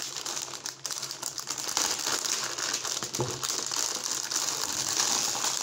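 Crinkly plastic wrapper of a pack of sponge cakes being opened and handled, a continuous crackling rustle that grows louder about two seconds in.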